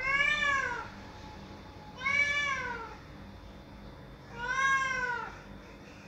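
Domestic cat meowing at a closed door, three long meows about two seconds apart, each rising and then falling in pitch: the cat is crying to have the door opened.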